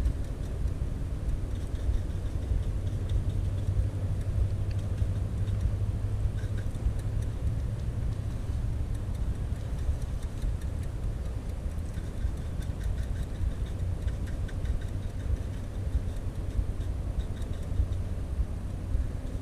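Steady low rumble of road traffic, with faint scattered ticks above it.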